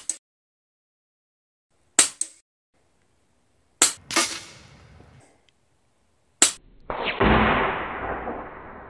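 Airgun Technology Uragan Compact .177 PCP air rifle firing: a string of about five sharp shots, one to two and a half seconds apart, some followed closely by a quieter knock. A rushing noise swells near the end and fades away.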